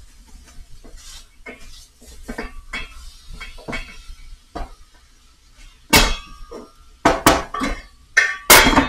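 A cooking utensil clinking and scraping against a stainless steel pan while food is stirred. Then come louder metal clanks with a short ring, about six seconds in and again near the end, from the pan and its metal lid being handled.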